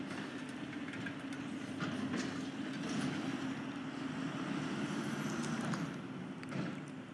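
A truck engine running steadily with a low drone.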